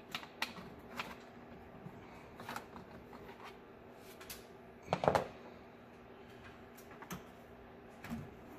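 Hands working loose the stock plastic intake tube and air box of a truck engine: scattered plastic clicks and knocks, the loudest about five seconds in, over a faint steady hum.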